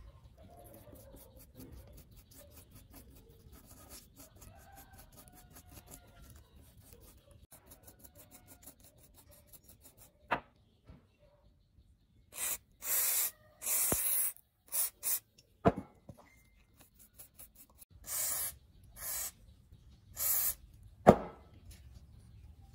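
An aerosol spray can with a straw nozzle sprays liquid cleaner onto a small circuit board in several short hissing bursts. Sharp clicks come between the bursts, and a faint rubbing and scraping on the board comes before them.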